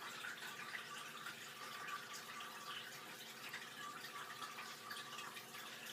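Faint wet smearing and patting of fingertips spreading a thick face-mask cream over the skin, in small scattered ticks.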